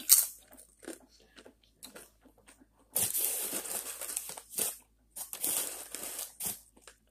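A crinkly plastic bag of tortilla chips rustling and crackling in two long stretches about three and five seconds in, as a hand rummages inside it. A sharp crunch comes right at the start.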